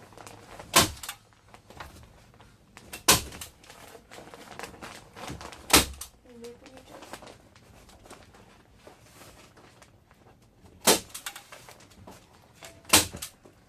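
Five sharp knocks a few seconds apart, from impacts during kitchen renovation work.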